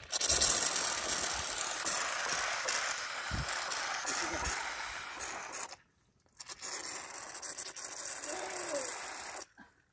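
Air hissing out of a tractor water pump as it is primed with water, the trapped air being pushed out. The steady hiss breaks off briefly about six seconds in, resumes, and stops shortly before the end.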